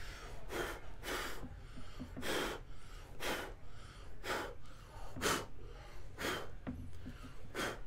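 A man blowing short puffs of breath onto a statue piece to clean it, about eight gusts roughly a second apart.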